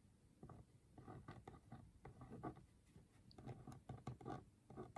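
Faint scratching of a pen writing on a sheet of paper, in many short strokes.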